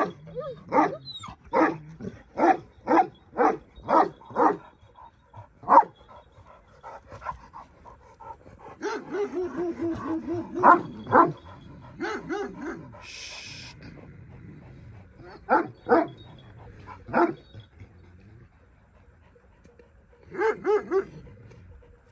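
Large shepherd dogs barking: a quick run of deep barks at about two a second, then scattered barks, with a longer drawn-out cry in the middle.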